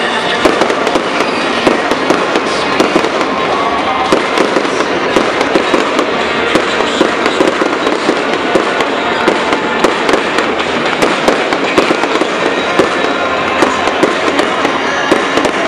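Fireworks display: a continuous barrage of bangs and crackling, with many sharp reports a second and no let-up.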